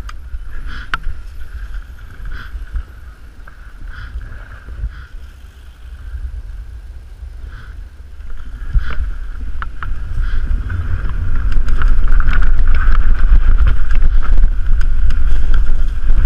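Mountain bike riding downhill on a gravel trail: wind rumble on the microphone that grows much louder from about eight seconds in as speed builds, with tyre noise on the loose surface and scattered clicks and rattles from the bike.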